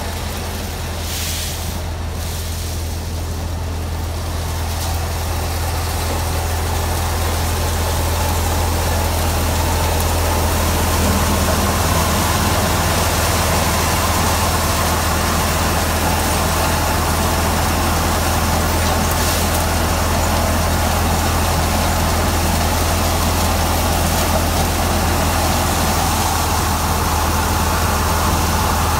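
Mahindra 475 DI diesel tractor engine running steadily under load, driving a Jangid thresher whose drum and blower whir as crop is fed in. It grows louder over the first ten seconds or so, then holds steady.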